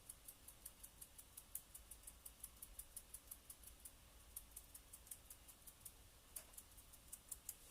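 Faint, quick ticks at about four or five a second: a finger flicking across the bristles of a paint-loaded brush to splatter a fine mist of thinned acrylic paint.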